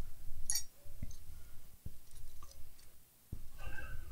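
Light handling noise on a workbench: a few scattered clicks and soft knocks with the rustle of a fleece sleeve as hands reach across and move things around the laptop.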